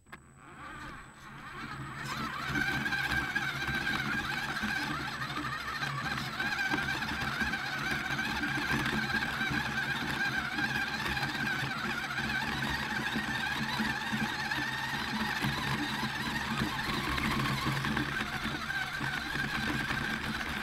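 Brushed electric motor and gear drivetrain of an HB P1001 RC rock crawler whirring steadily as it drives over grass, heard close up from a camera riding in its cab. A thin high whine at the start as it pulls away, with the whir building to a steady level about two seconds in.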